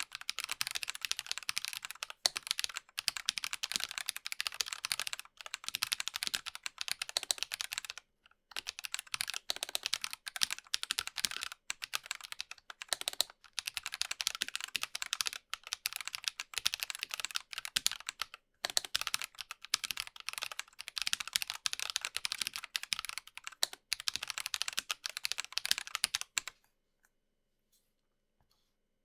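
Fast, continuous typing on a Dygma Raise split mechanical keyboard with Drop x Invyr Holy Panda tactile switches, lubed and filmed: a dense stream of key clacks with two brief pauses, stopping about three seconds before the end.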